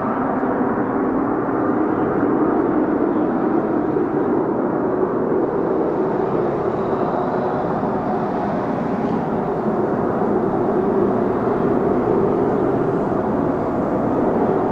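Lockheed Martin F-35B Lightning II's jet engine, steady loud jet noise, dull with little treble.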